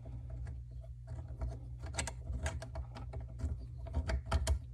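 Irregular small clicks and scrapes of a sink pop-up drain's pivot nut being turned by hand onto the drain pipe's threaded fitting, the nut not yet catching the threads. A steady low hum sits underneath.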